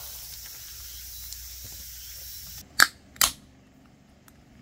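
Aluminium beer can opened by its pull tab: two sharp cracks about half a second apart, a little under three seconds in.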